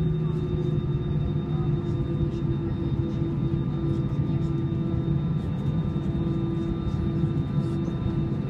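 Airbus airliner's jet engines running at taxi power, heard inside the cabin over the wing: a steady hum with several held tones over a low rumble as the aircraft rolls along the taxiway.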